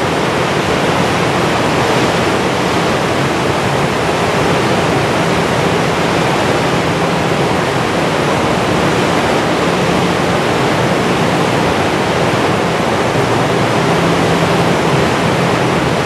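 River rapids: white water rushing steadily over rocks and boulders, an even, unbroken rush of noise.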